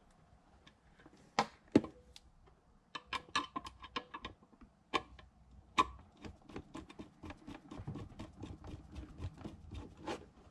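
Scattered clicks and taps as a wire is worked into an LED controller's screw-terminal block, then a run of light, even ticks, about four a second, as a screwdriver turns the terminal screw down on the wire.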